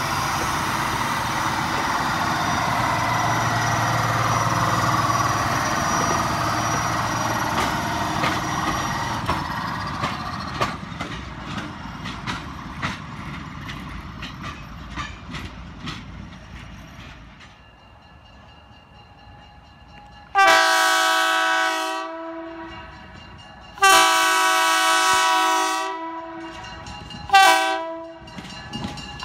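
Budd Rail Diesel Car passing close by, its engine and wheels rumbling over the rails, with wheel clicks thinning out as it moves away. After a lull, its multi-note air horn sounds two long blasts and a short one, with a fourth starting at the very end: the long-long-short-long grade-crossing signal.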